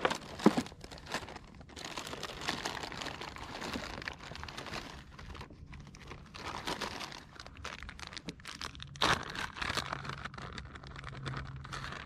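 Crinkling and rustling of clear plastic zip-top bags of soft-plastic baits being rummaged through by hand, in irregular bursts with short pauses. A sharp knock about half a second in is the loudest sound.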